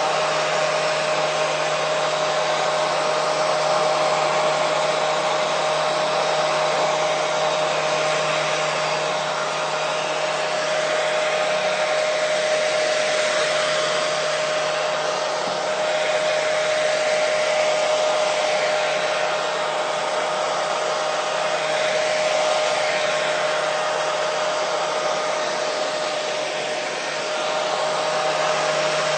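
Hair dryer running continuously on a steady setting: an even blowing hiss with a steady whine from the motor.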